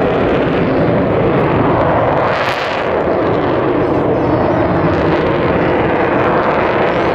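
Jet noise from Avro Vulcan XH558's four Rolls-Royce Olympus turbojets as the delta-wing bomber flies its display: a loud, steady rumble. About two and a half seconds in it briefly turns hissier and thinner in the low end.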